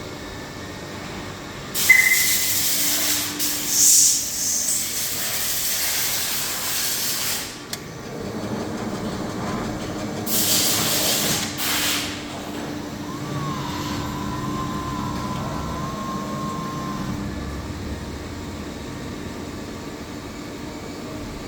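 Mini desktop plastic injection molding machine at work: two loud hissing stretches over a steady hum, the first starting about two seconds in and lasting some six seconds, the second shorter. A faint steady whine follows.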